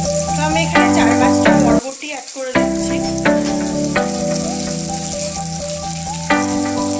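Sliced onions and green beans sizzling in a little oil in a wok, stirred with a spatula, over background music of sustained notes that change every second or so.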